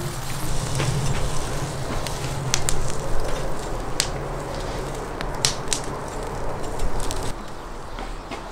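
Tandoor fire crackling under eggplants and peppers charring on a grill rack, a steady rush with scattered sharp pops.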